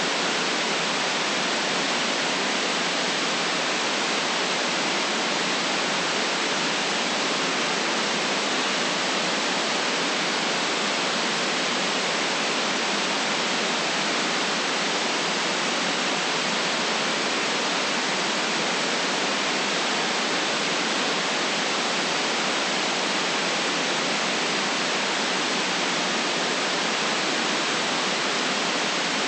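Steady white noise: an even, unchanging hiss with no deep rumble.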